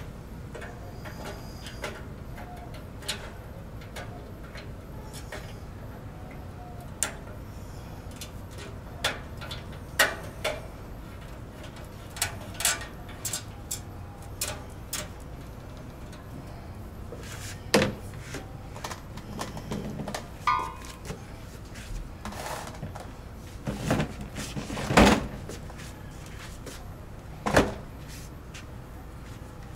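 Scattered knocks and clatters of kitchen handling over a steady low hum, with the loudest knocks in the second half.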